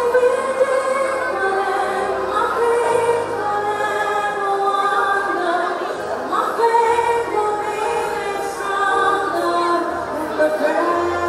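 A woman singing solo into a handheld microphone, her voice amplified through a PA, holding and gliding between sustained notes over low instrumental notes.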